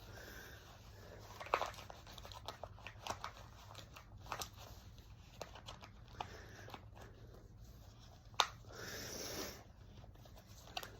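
Faint rustling of clothing and small scattered clicks as a holstered pistol is handled and shown for carry. There is one sharper click about eight seconds in, followed by a short rustle.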